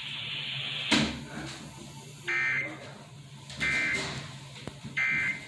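Emergency Alert System end-of-message signal: three short, identical bursts of buzzing digital data tones about a second and a half apart, marking the end of the tornado warning. A sharp click comes about a second in.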